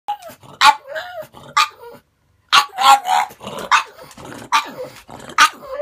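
Black pug barking in short, sharp barks about once a second, broken by a brief silent gap about two seconds in.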